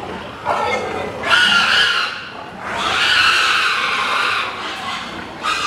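Pigs squealing: a shorter squeal about a second in and a longer, sustained squeal from about three seconds in.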